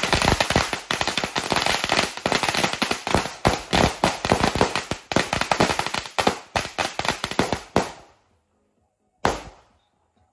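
A string of firecrackers going off in rapid, dense crackling for about eight seconds, then stopping. About a second later comes one more loud bang.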